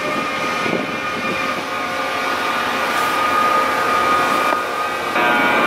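Korail class 8200 electric locomotive pulling a passenger train into the station and passing close by. It gives a steady whine of several held tones over the train's running noise.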